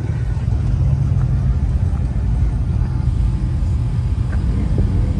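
Pickup truck engines running with a loud, steady low rumble.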